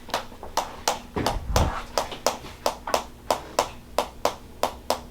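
Hands tapping rhythmically on a person's shoulders, about three sharp taps a second at an even pace. This is percussive tapping to loosen tight shoulder muscles.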